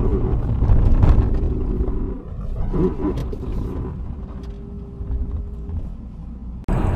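A car sliding off a snowy road into a roadside snowdrift: a loud low rumble of the car ploughing through the snow for about two seconds, then a much quieter engine and cabin sound with a faint steady tone as it comes to rest. The sound cuts off suddenly near the end.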